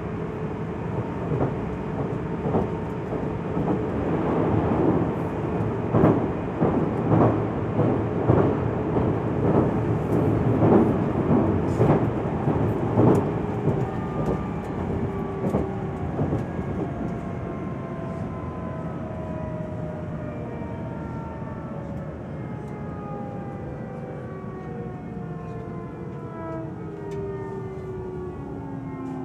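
JR Central 373 series electric train running, with wheels clicking over rail joints through the first half. It then slows, and a whine of several tones falls steadily in pitch: the noise on braking that the uploader found unlike a normal 373 series.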